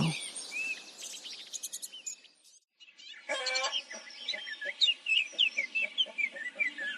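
Small birds chirping and twittering in farmyard morning ambience. Faint chickens are under it. The sound drops out briefly about two and a half seconds in, then resumes with denser chirping.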